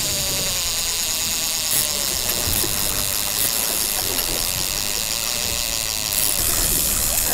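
Suzuki outboard motor running at idle under steady wind and water noise, with a few faint clicks and rattles.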